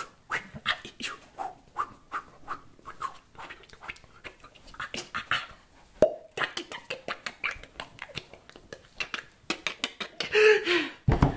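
A man beatboxing solo: a quick, uneven string of mouth pops, clicks and breathy hits, with a short pitched vocal sound near the end.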